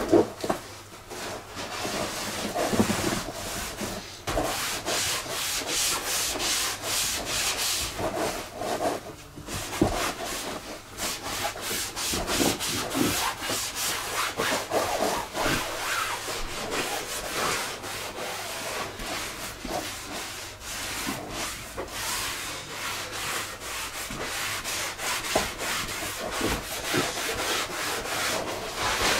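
A cloth and a sponge wiped back and forth over the PVC tubes and floor of an Intex Seahawk inflatable boat: a steady run of rubbing strokes.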